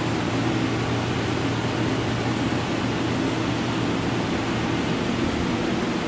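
HVAC system of a TriMet MAX Type 3 (Siemens SD660) light rail car running, heard inside the passenger cabin: a steady rush of fan air over a low hum.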